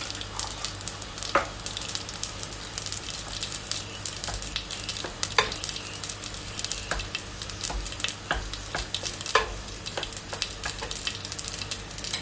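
Spices sizzling and crackling in hot ghee as they are tempered, with many small pops throughout. A wooden spoon stirs in the frying pan, knocking against it three times, about four seconds apart.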